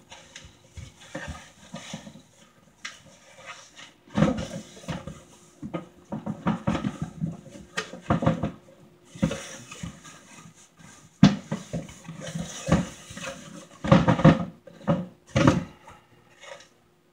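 Cardboard shipping box being handled by hand: flaps scraping and rustling as the box is turned and the shoebox shifts inside, with irregular knocks and bumps.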